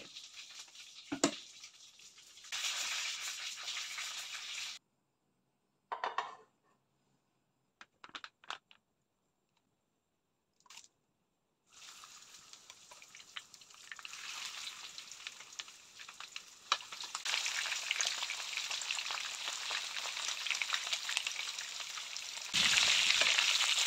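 Breaded chicken pieces frying in hot oil in a pan: a dense sizzle with crackles that starts about halfway through, builds, and gets louder near the end.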